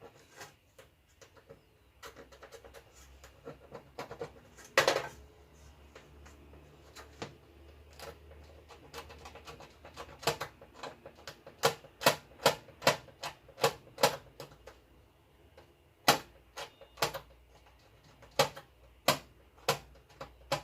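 Knife blade scraping the coating off an LED backlight strip to expose its positive copper trace: a run of short sharp scrapes, sparse at first with one longer stroke about five seconds in, then coming steadily about two a second in the second half.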